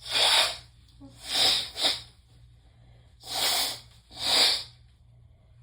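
A person's forceful, hissing bursts of breath through the nose and mouth, five in about five seconds, in a sneezing fit set off by Chhinkni sneezing powder.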